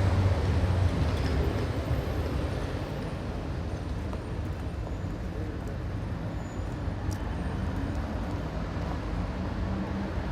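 Busy street traffic: a vehicle's low engine drone is loud at the start and fades over the first couple of seconds as it passes, leaving a steady wash of traffic noise.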